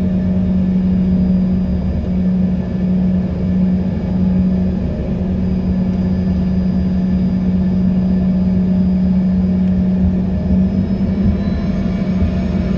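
Cabin noise of an Embraer E145 jet, its twin rear-mounted Rolls-Royce AE 3007 turbofans running steadily with a constant low hum over a rumble, heard from inside the passenger cabin.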